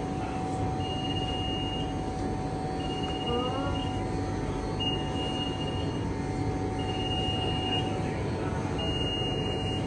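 Train noise: a steady low rumble with a steady hum. A high electronic beep about a second long repeats every two seconds, five times in all.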